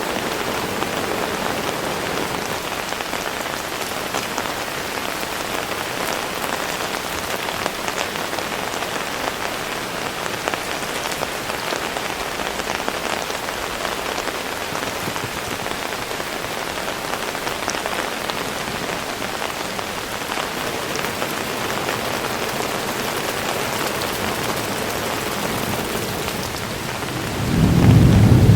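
Heavy rain falling steadily. Near the end a low rumble of thunder swells in and becomes the loudest sound.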